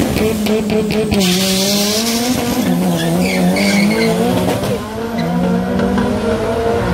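Two drag-racing cars launching off the line with engines revving hard and a burst of tyre squeal about a second in. The engine note then climbs and drops back at each gear change as the cars pull away down the strip.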